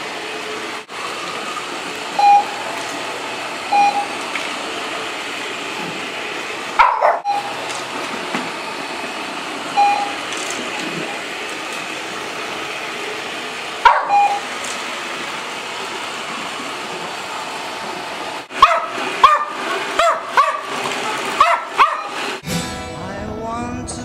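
A Roomba robot vacuum runs steadily while a Manners Minder treat dispenser riding on it gives short beeps several times. Dogs bark sharply now and then, in a quick run of barks towards the end, and music comes in at the very end.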